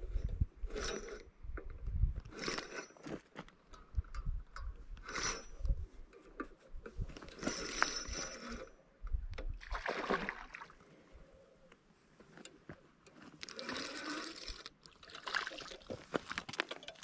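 A hooked largemouth bass splashing at the water's surface as it is fought and reeled in on a spinning rod. The splashes come in short, uneven bursts, mixed with knocks and clicks from the rod and reel.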